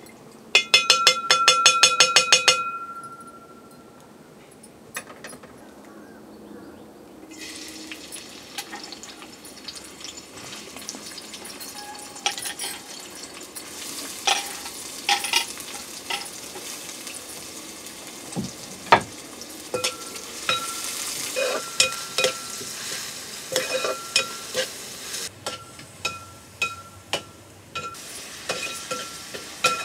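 Sliced onions sizzling as they fry in hot ghee in a metal pan, the sizzle starting abruptly about seven seconds in. A flat metal spatula scrapes and clinks against the ringing pan as the onions are stirred, and near the start a metal spoon clatters rapidly against the pan for about two seconds.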